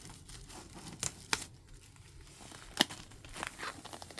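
Plastic shrink wrap being torn and peeled off a vinyl record's sleeve: scattered crinkles and a few sharp crackles.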